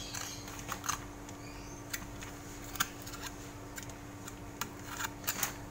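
Solid grease being smeared into the metal gear cover of a spice-mixer machine by hand: irregular small clicks and sticky dabs as the applicator works the grease, over a faint steady hum.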